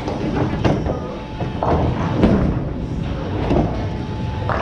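Bowling alley din: a bowling ball rolling down a wooden lane, and pins crashing, amid repeated thuds and clatter from the lanes.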